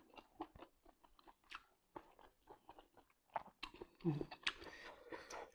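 Faint close-up mouth sounds of eating cooked octopus tentacle: sparse wet clicks and smacks of chewing, with a small cluster of louder bites and chews a little over three seconds in.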